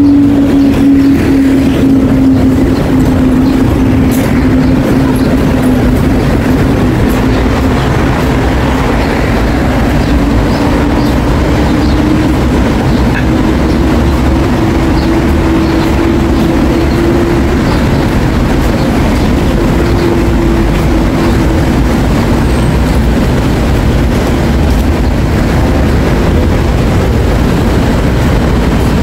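Loud, steady road traffic along a busy city boulevard, with a steady hum that slowly drifts down and back up in pitch.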